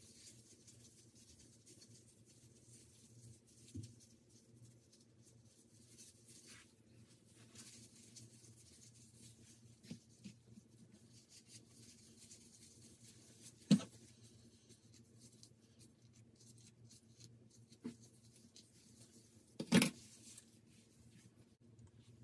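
Faint scratching and rustling of nitrile-gloved hands working a baking soda and peroxide paste through short, coily hair, over a low steady hum. Two brief louder knocks come about 14 and 20 seconds in.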